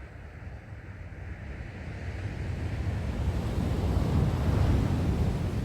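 Sea waves washing onto the shore, with one wave surging up and breaking about four seconds in. Wind is buffeting the microphone throughout.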